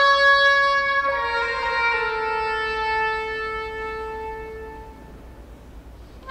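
Unaccompanied oboe playing a slow phrase: a note change about a second in, then a long held note that dies away, leaving a short pause near the end.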